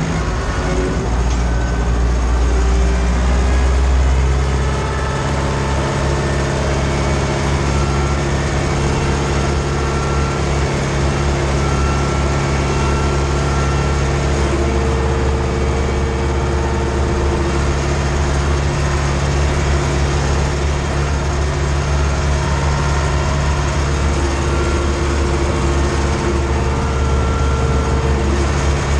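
Ursus C-360 tractor's four-cylinder diesel engine running steadily under load while pulling a seedbed cultivator, heard from inside the cab. The engine note eases slightly about five seconds in, then holds steady.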